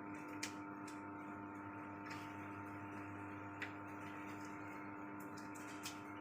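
A steady electrical hum with about four faint, short clicks spread through it.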